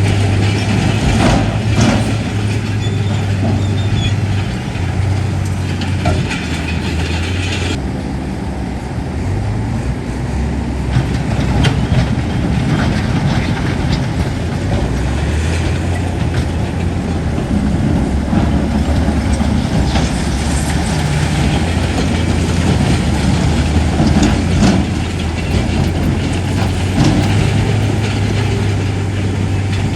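Crawler bulldozer's heavy diesel engine running steadily under load, with the metallic clanking of its steel tracks.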